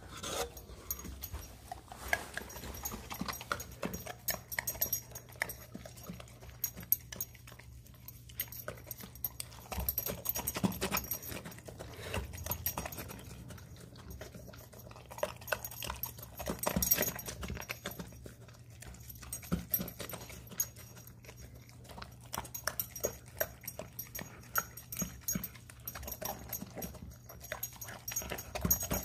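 Dog eating meat from a stainless steel bowl: a steady run of irregular wet chewing, smacking and licking sounds.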